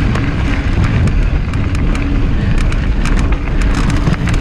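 Wind buffeting the microphone and tyre noise of a mountain bike riding fast over a rocky trail, with scattered clicks and rattles throughout.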